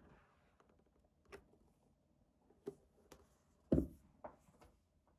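Hands handling a Hobonichi Techo Cousin planner: a few soft, scattered taps and clicks of the book's cover and pages, with a dull thump about three-quarters of the way in as the planner is set down on the table.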